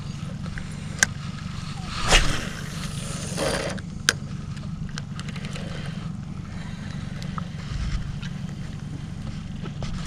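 A boat motor running steadily with a low hum, with a few light clicks and a short swish about two seconds in.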